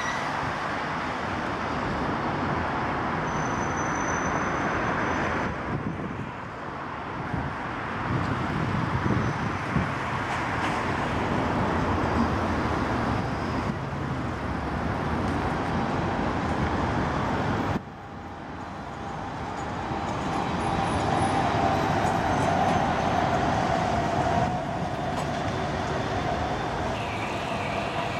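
Bombardier CR4000 electric trams running along street track: a steady rumble of wheels on rail mixed with town traffic noise, with a steady whine from the tram's electric drive about three quarters of the way through. Near the end a thin, wavering high squeal comes in as a tram rounds a curve.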